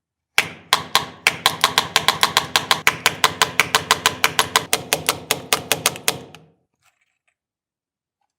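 Restored 1930s Rawlplug Mechanical Hammer hand-powered masonry drill hammering: a fast, even train of sharp metallic blows, about five a second, starting about half a second in and stopping about six seconds in.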